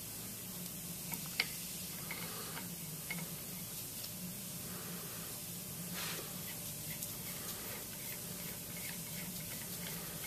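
A few faint clicks and taps as seal rings are handled and seated on a pump's piston rod, over a steady hiss and a low hum.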